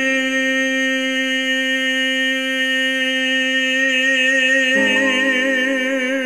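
A male crooner holding one long sung note with vibrato that widens toward the end, over soft backing chords that change about five seconds in.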